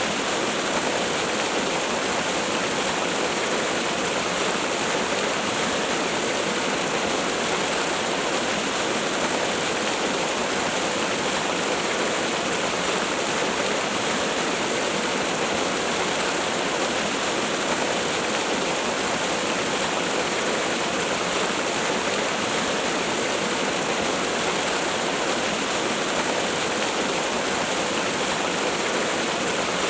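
Waterfall rushing, a steady even hiss of falling water that doesn't change.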